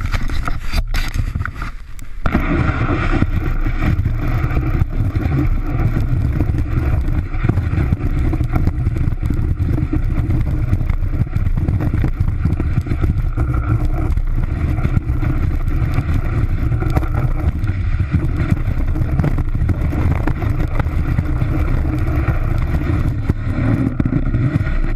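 Snowboard base sliding and scraping over snow, picked up by a camera mounted on the board itself: a loud, steady, rough rumbling noise, with a couple of brief dips in the first two seconds.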